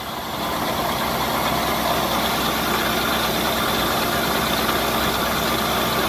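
Grain pouring steadily from a hopper-bottom trailer's gate into a grain auger's hopper, a constant rushing hiss that swells slightly about half a second in, over the steady hum of an idling engine driving the auger.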